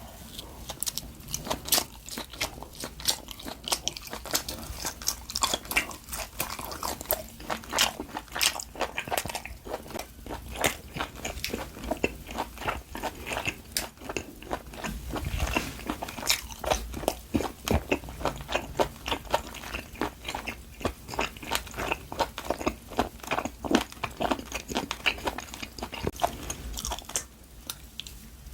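Close-miked chewing and biting of LA galbi (marinated grilled beef short ribs): a dense, quick run of wet mouth clicks and smacks that stops about a second before the end.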